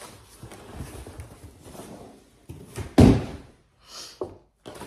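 Cardboard shipping box and loose packing peanuts rustling as they are handled, then one loud thump about three seconds in as the box is knocked or set down, and a brief rustle after it.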